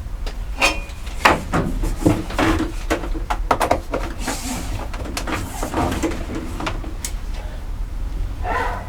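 Irregular knocks, clunks and scrapes of oak boards and tools being handled and set down, over a low steady hum.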